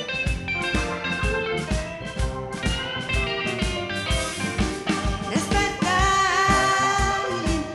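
A rock-blues song with electric guitar and a steady kick-drum beat. A female singer holds a long note with vibrato near the end.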